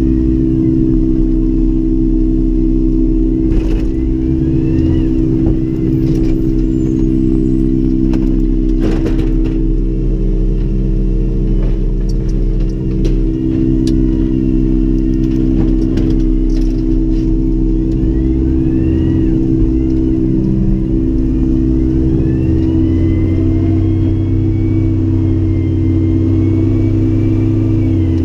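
Engine of a CNG Freightliner M2 garbage truck heard from inside the cab, running steadily with a deep hum. Scattered clatters and knocks come over it, and a few faint rising tones, one held for several seconds near the end.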